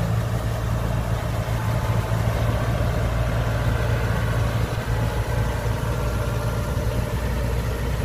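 Diesel engine of a Kubota DC70 combine harvester running steadily as the tracked machine crawls up a bank.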